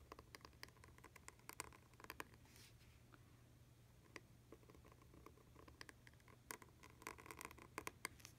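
Pointed calligraphy dip-pen nib scratching faintly on paper while writing a Copperplate lowercase a: a cluster of small scratches in the first two seconds or so, and another near the end.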